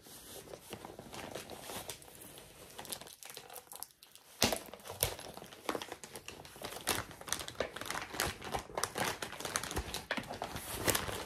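Stiff kraft-paper Amazon mailer crinkling and rustling as it is handled and opened, full of crisp crackles. There is a short lull a few seconds in, then a sharp crackle.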